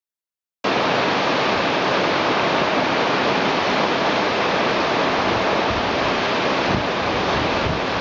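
Alluvial Fan waterfall rushing down over granite boulders: a steady, dense roar of falling water that starts abruptly about half a second in.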